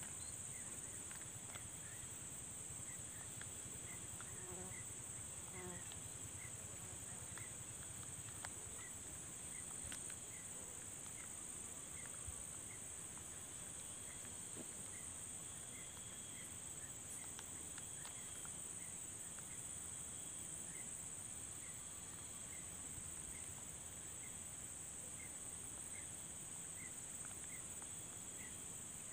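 Steady high-pitched drone of insects, with a short chirp repeating a little more than once a second.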